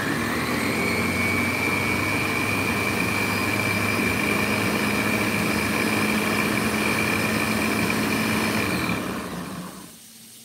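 Ninja countertop blender motor running, pureeing cooked cauliflower with mascarpone and cream. It spins up with a rising whine, runs steadily, and winds down about nine seconds in.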